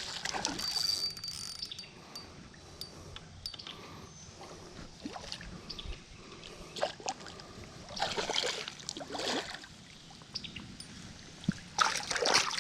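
Water splashing in bursts, at the start, about eight seconds in and again near the end, over a low wash of running water: a hooked bass thrashing at the surface as it is fought in.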